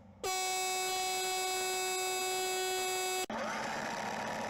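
A loud, steady, buzzing electronic tone starts abruptly, holds one pitch for about three seconds and cuts off sharply, followed by a steady hiss as the glitter bomb goes off.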